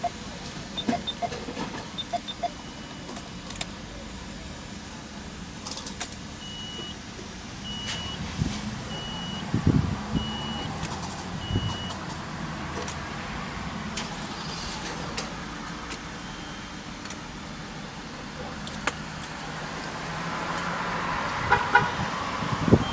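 Inside a 1996 Nissan Maxima: keys jangling and scattered clicks. A warning chime beeps five times, about a second apart, in the middle, and a few low thumps follow.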